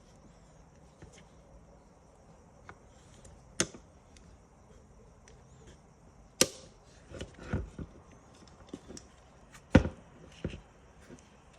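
Seatbelt retractor parts being handled and pressed together while its coil spring is tensioned: a handful of sharp, irregular clicks and knocks. The loudest come about three and a half, six and a half and ten seconds in, with a small cluster around seven to eight seconds.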